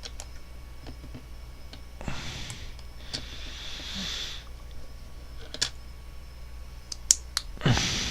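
LEGO bricks being handled and pressed together: scattered small plastic clicks, with a couple of soft hissing stretches in the middle and a louder rustle near the end, over a steady low hum.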